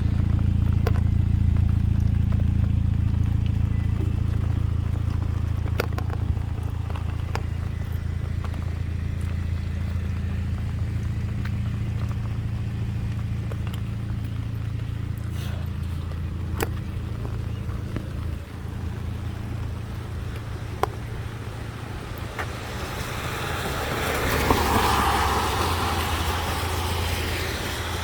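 A low, steady engine rumble that slowly fades. Near the end a vehicle hisses past on wet pavement, and light ticks are scattered throughout.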